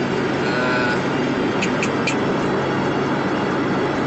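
Steady road and engine noise inside a moving car's cabin, with three faint light ticks about two seconds in.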